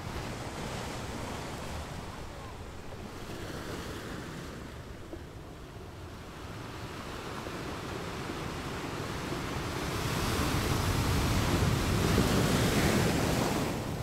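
Ocean surf washing on the shore: one wave builds over several seconds, breaks loudest in the last few seconds, then falls away just before the end.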